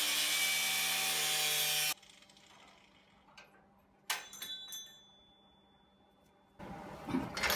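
Angle grinder with a cut-off wheel cutting into a steel Mustang II suspension spring hat, a high whine over a harsh cutting noise, which stops abruptly about two seconds in. A couple of seconds later a single metal clank rings on with a high tone for about two seconds, and handling noises follow near the end.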